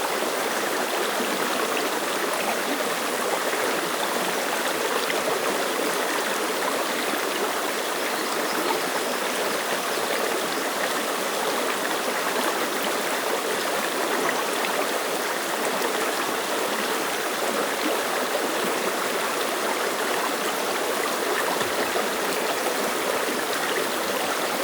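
Clear mountain stream rushing and babbling over rocks, a steady, even water sound with no let-up.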